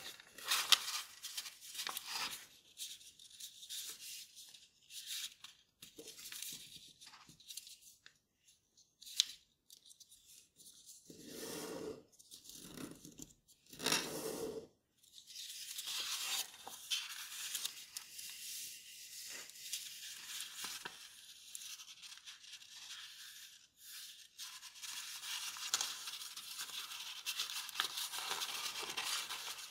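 Kraft paper being folded and creased by hand: crisp rustling and crinkling in bursts with short pauses, and a few fuller rubs about halfway through.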